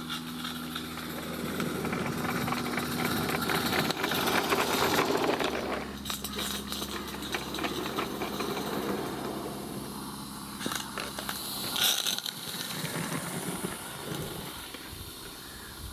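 Small live-steam garden-railway locomotive running with a rapid chuffing exhaust and steam hiss, its wheels clattering on the track as the train passes, loudest about four to six seconds in.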